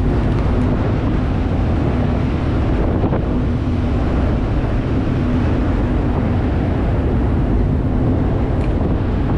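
Vessel's engines running with a steady low hum, mixed with wind buffeting the microphone.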